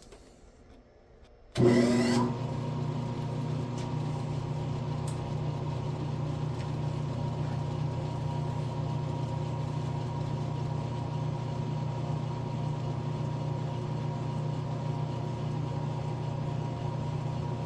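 Metal lathe's motor switched on about a second and a half in, then running steadily with a low hum and a thin steady whine.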